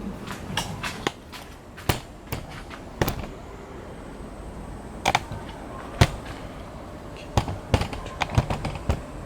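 Irregular sharp clicks and knocks of small metal engine parts being handled and set down on a bench, the loudest clink about six seconds in and a quick run of them near the end.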